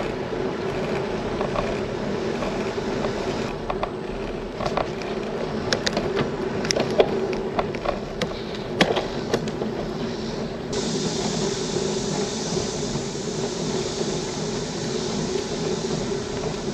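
Steady rushing noise of a bicycle ride on the road, wind and tyres, with a scattered run of light clicks in the middle and a higher hiss that cuts in about two-thirds of the way through.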